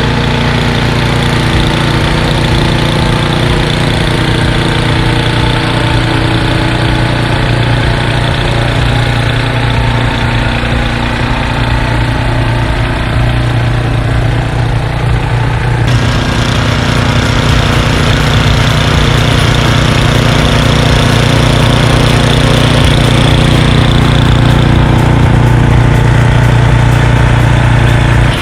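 Troy-Bilt Storm snow blower's single-cylinder four-stroke engine running steadily under load, with an abrupt shift in its tone a little past halfway.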